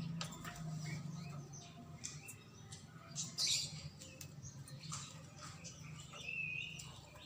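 Black-naped oriole making a run of short, squeaky chirps, with one louder note about three and a half seconds in and a brief held whistle near the end, over a steady low hum.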